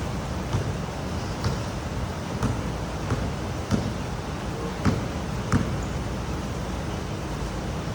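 Steady hiss and rumble of pouring rain, with a sharp tap or thump about every half second to a second.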